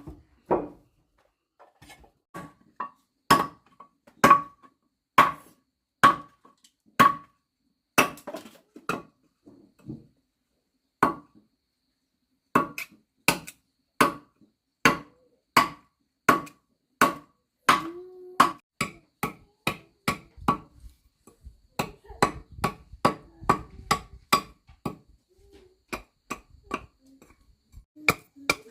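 Repeated sharp blows of a hand tool striking wood, about one a second at first and quickening to two or three a second near the end, each with a short ring.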